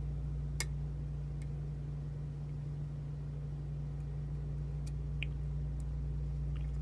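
Lock pick and tension wrench working the pins of a pin-tumbler challenge lock: a few faint clicks, one sharper click about half a second in, over a steady low hum.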